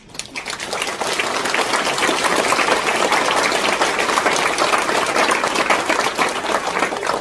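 Audience applauding: a dense patter of many hands clapping that builds up over the first second and dies away near the end.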